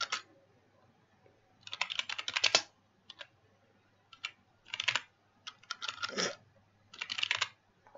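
Computer keyboard typing in several short bursts of rapid keystrokes, with brief pauses between the bursts.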